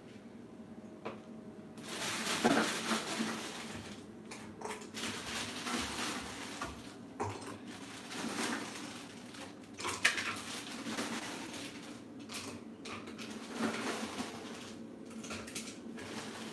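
Ice cubes being added to a large plastic bucket of agua fresca, clattering and knocking against each other and the bucket walls. The clatter starts about two seconds in and carries on with repeated rattling.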